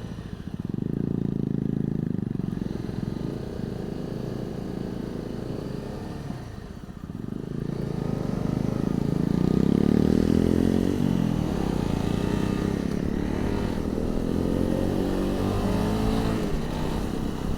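A 250cc motorcycle being ridden, heard through a lavalier mic inside the rider's crash helmet, with wind noise. The engine eases off about six seconds in, then its pitch rises as the bike accelerates again.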